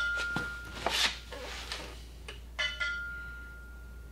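A small metal object is struck and rings with a clear, bell-like tone that dies away over about a second. There is a short scraping sound about a second in, and a second ringing strike comes a little past halfway.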